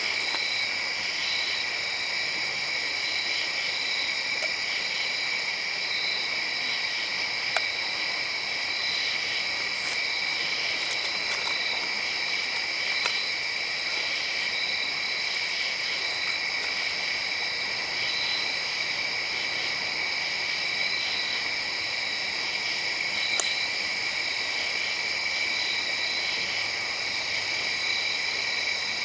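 Steady chorus of night insects: several unbroken high-pitched trills, one of them pulsing, with a higher buzz that fades in and out every few seconds. A few faint ticks stand out over it.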